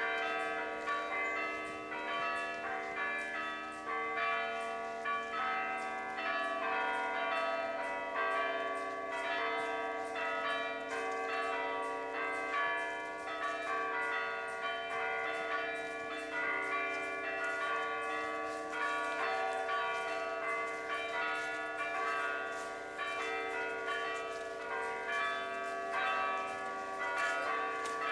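Church bells ringing: many strikes at several different pitches overlap, each note ringing on, with no pause.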